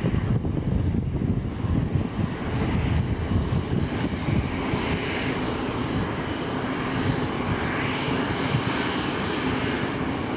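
Aircraft engine noise at a distance: a steady rumble, with a faint even hum joining about halfway through.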